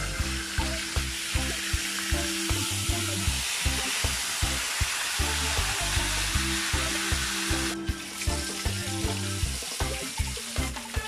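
Whole carp frying in hot oil in a pot, a steady crackling sizzle that drops out for a moment about eight seconds in, with background music with a steady beat under it.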